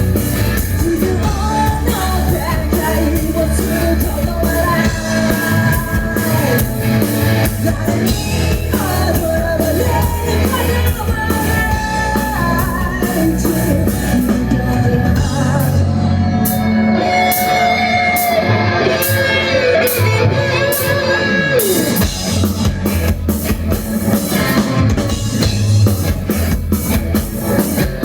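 Live rock song with singing over drums and guitar. About halfway through, the bass and kick drum drop out for several seconds, leaving the vocals over a few sparse cymbal hits, then the full band comes back in.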